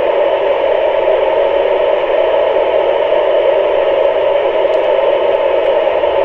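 Steady hiss from an amateur radio transceiver's speaker with its squelch open: the receiver is picking up noise with no station coming through between calls.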